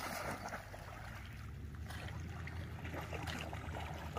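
Black dog wading and splashing through shallow lake water, over a steady low rumble.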